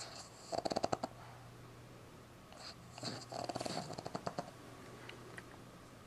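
Boston Terrier puppy snoring in its sleep: two fluttering snores, a short one about half a second in and a longer one from about two and a half to four and a half seconds in.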